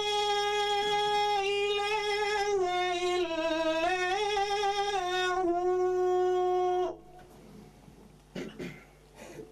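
A man's voice chanting the Qur'an in a long, ornamented held note whose pitch wavers and dips in the middle, then breaks off about seven seconds in. Faint scattered background sounds follow.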